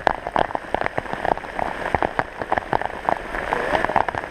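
Heavy rain falling steadily, with a dense, irregular patter of sharp drop hits close by.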